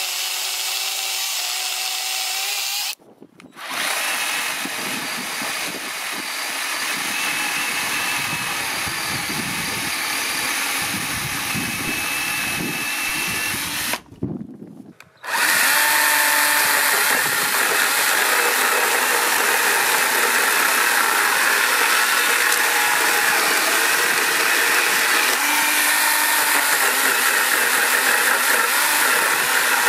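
Parkside PKSA 20-Li B2 20 V cordless chainsaw cutting through wood under load, first a large log and then a timber beam. The electric motor and chain run steadily and break off briefly twice, and the cut is louder and brighter in the second half.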